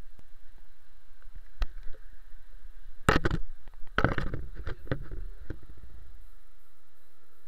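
Handling noise of a small action camera being moved and set down on a wet tiled floor: a sharp click about a second and a half in, then clusters of knocks and rubbing against the microphone around three seconds in and again from four to five and a half seconds, settling into a steady faint hiss once it is still.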